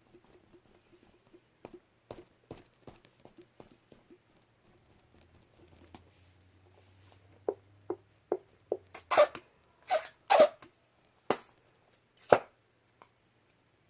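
Slime being worked softly by hand with lotion mixed in, making faint clicks at first, then a run of sharp, loud pops and snaps in the last few seconds as it is stretched and pressed.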